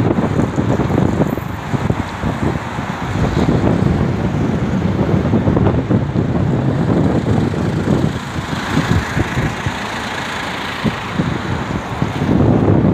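City road traffic at a wide intersection, with wind buffeting the microphone in low gusts throughout. The traffic hiss swells about eight seconds in.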